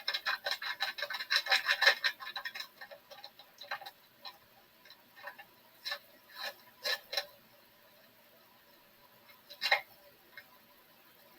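Chili seasoning being shaken out of its packet: a quick run of crinkling ticks for about three seconds, then a few scattered taps and crinkles.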